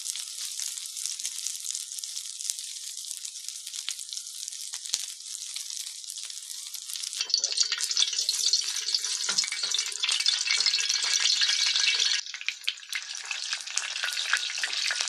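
Food sizzling and crackling in a hot pan. The sizzle grows louder about seven seconds in and drops off briefly near the end before picking up again.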